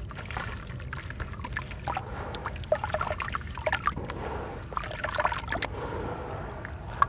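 Dried sand-cement pieces crumbling and dissolving in water, with an irregular run of small crackles, pops and ticks over a fizzing trickle. A sharp click comes near the end.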